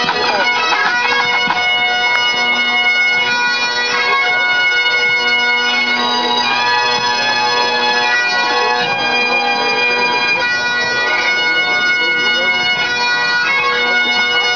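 Pipe band playing: many Great Highland bagpipes sounding together, their steady drones held under the chanter melody as it moves from note to note.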